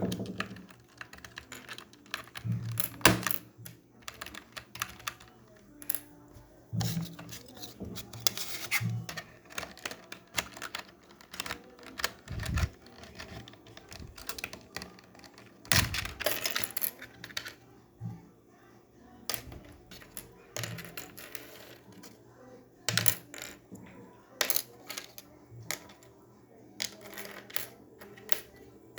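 Membrane keyboard keys being pressed, irregular clicks and clattery clusters of keystrokes with short pauses between them.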